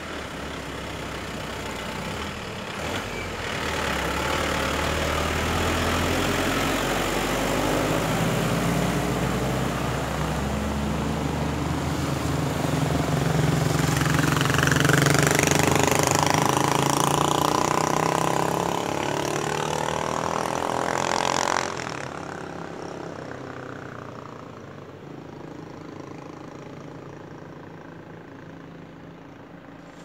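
An engine running, its pitch rising and falling, then cutting off suddenly about two-thirds of the way through, leaving a fainter fading rumble.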